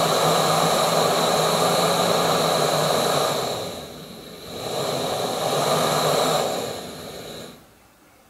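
Campingmoon XD-2F backpacking gas stove burner running at full output with a steady rushing hiss and a thin high whistle. It is turned down about three and a half seconds in and back up a second later, then turned down again and shut off near the end.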